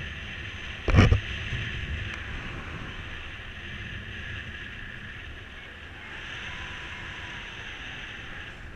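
Wind rushing over the microphone during paraglider flight, a steady hiss, with a loud buffeting thump about a second in.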